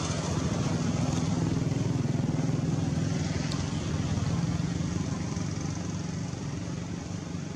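An engine running steadily, a little louder through the middle and easing off near the end.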